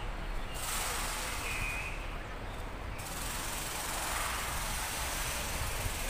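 Steady outdoor background noise: a low rumble under an even hiss.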